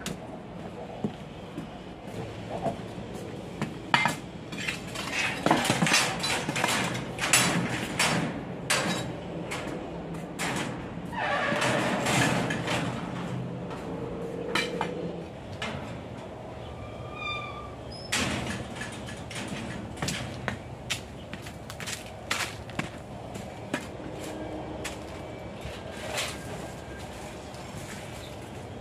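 Irregular knocks, clatter and scuffing of someone walking in rubber boots while carrying a long-handled digging tool and a sheet of cardboard. A brief high squeak comes about two-thirds of the way through.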